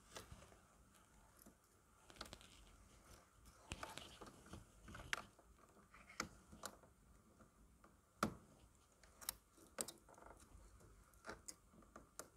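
Faint clicks, taps and rustling of gloved hands pulling wires from a terminal block inside a steel control cabinet, with one sharper click about eight seconds in.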